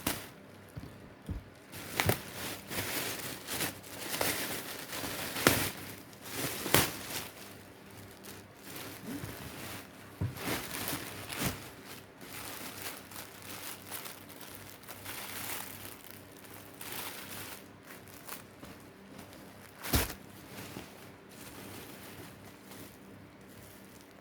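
Parcel packaging being handled and opened: irregular crinkling and rustling with tearing and sharp clicks, and one loud crack near the end.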